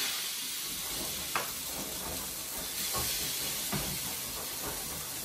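Steady sizzling hiss of pancake batter cooking in a hot carbon-steel wok on a gas hob, with a few light clicks of the ladle.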